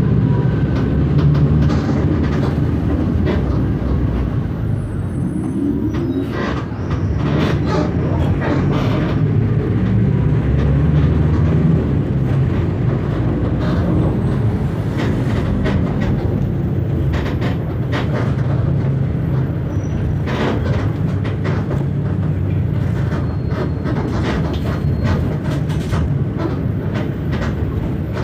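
Mercedes-Benz OF 1519 city bus with a Marcopolo Torino body running on the road: a steady diesel engine drone with frequent clicks and rattles from the body, the engine note rising briefly about five seconds in.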